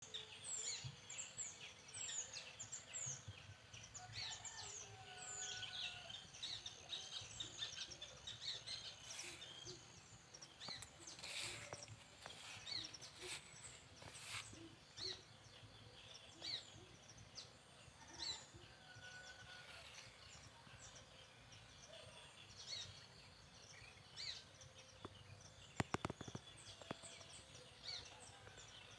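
Faint birdsong: several birds chirping, with many short high chirps and a few clear whistled notes, busiest in the first half. A couple of sharp clicks come near the end.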